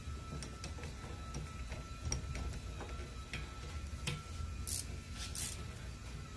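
Scattered light metal clicks and clinks as a rear brake caliper is worked by hand onto its bracket over new pads and the rotor, with two short scrapes near the end, over a steady low shop rumble.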